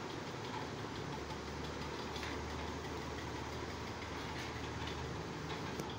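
Steady low machine drone with a hum at the bottom, and a few faint light clicks.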